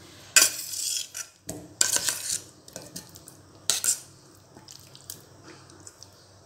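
Stainless steel bowl and spoon clinking against a steel mixer-grinder jar as chopped mango pieces are tipped and scraped in. Several sharp metallic clinks, the loudest roughly one and a half to two seconds apart, with softer taps and the wet slide of fruit between.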